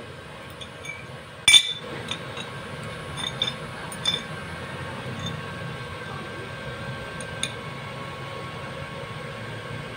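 Steel welding rod tapped against a steel workpiece: a few light metallic clinks, the loudest about one and a half seconds in, over a steady low hum.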